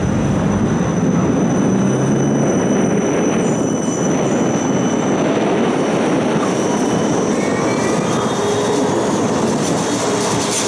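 Steady hum and rumble of electric trams standing at a busy tram stop, with a constant high electrical whine and a few faint whistling tones in the second half.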